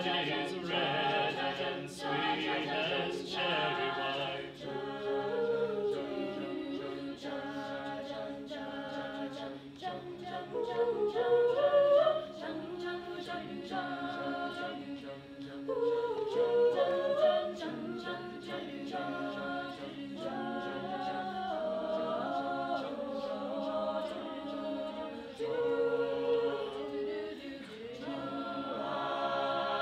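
A mixed a cappella group singing: a male lead voice with sliding, wavering melody lines over a sustained sung chord from the backing voices. Near the end the group settles onto one long held chord.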